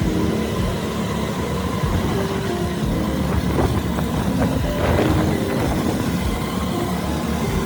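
Steady motor-vehicle engine noise, with short tones scattered through it.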